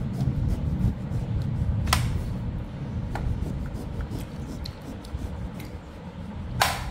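A kitchen knife shaving the green zest off a pomelo, making short scraping and cutting strokes with a sharp click near the end, over a steady low rumble.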